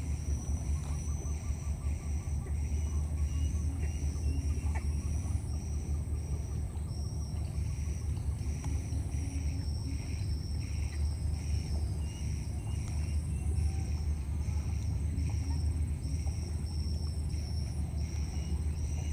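Outdoor ambience: a steady low rumble, with a faint high chirping that repeats in short pulses, about one or two a second.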